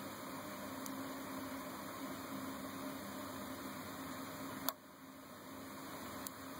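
Singer 221 Featherweight sewing machine running, motor humming steadily while it stitches free-motion with the darning foot. About two-thirds of the way in it stops with a sharp click and goes quieter. Near the end a small click comes and the running sound picks up again.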